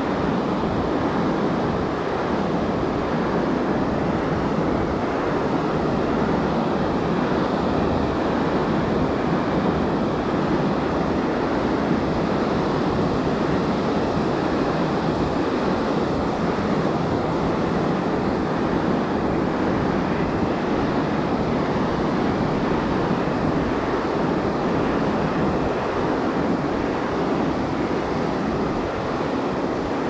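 Pacific Ocean surf breaking on the beach, heard as a steady, unbroken wash of waves with no separate crashes standing out.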